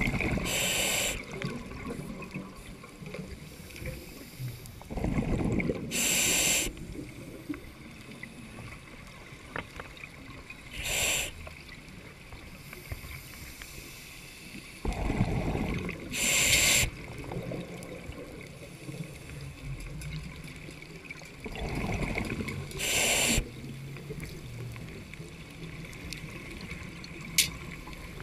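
Scuba regulator breathing heard underwater: about five breaths, each a rumble of exhaled bubbles followed by a short high hiss of the regulator, one every five or six seconds. A single sharp click near the end.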